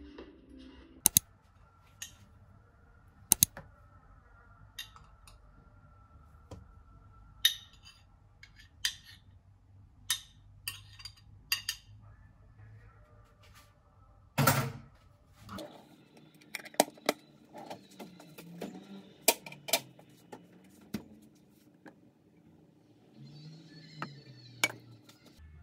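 Scattered sharp clicks and clinks of cutlery and cookware at irregular intervals, with one louder knock about halfway through.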